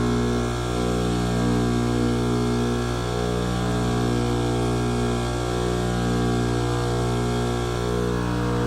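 Trane heat pump condenser unit running with a steady, even hum made of several pitches, wavering faintly about once a second.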